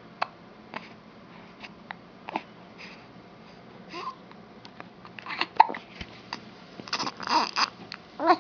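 A baby hiccuping: short, sharp hiccups every second or so, then babbling vocal sounds in the second half, loudest near the end.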